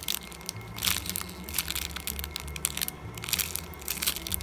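Clear plastic packaging crinkling and crackling in irregular bursts as a bagged foam macaron squishy is squeezed and turned in the hands.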